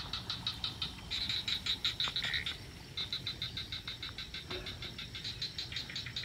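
A chorus of frogs calling at night: rapid, high-pitched pulsed calls repeating about eight times a second, several callers answering one another.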